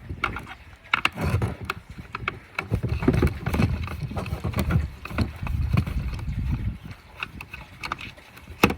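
A cross-head screwdriver backing screws out of the plastic turbo head of a Henry vacuum cleaner, with repeated small clicks and scrapes and the knocks of the head being handled.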